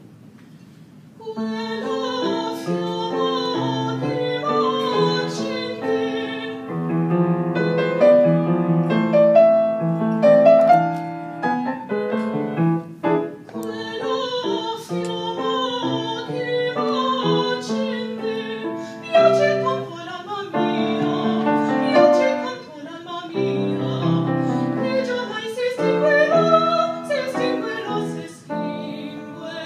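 A young woman singing an Italian love song in classical, operatic style, with piano accompaniment; the music begins about a second in.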